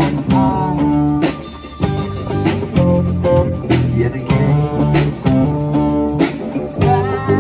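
Live rock band playing: electric guitars, bass guitar and drum kit, with drum hits coming at a steady beat.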